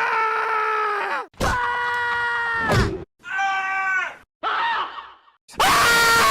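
A rapid series of scream sound effects, cut back to back: about five separate loud, harsh screams, each around a second long with short silences between, most ending in a pitch drop. The second scream and the last one, which begins near the end, each open with a harsh noisy burst.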